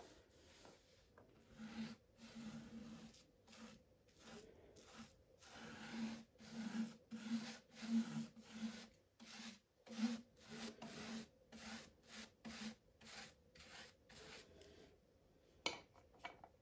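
Bristle paintbrush rubbing over the faceted resin drills of a diamond painting in back-and-forth strokes, about two a second, brushing on a sealant coat. Near the end comes a single sharp tap as the brush goes back to the sealant jar.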